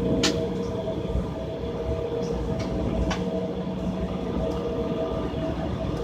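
Jet airliner heard from the cabin while it rolls on the ground: steady engine hum and a low rumble, with a few sharp knocks from the wheels going over pavement joints.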